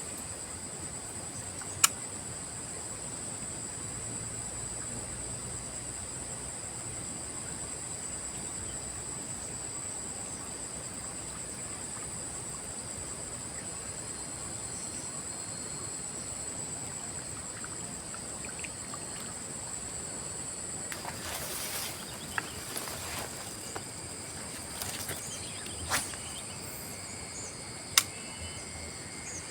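Steady high-pitched insect chorus, crickets or similar, shrilling without a break. A few sharp clicks cut through it, and there is a couple of seconds of rustling handling noise about three-quarters of the way in.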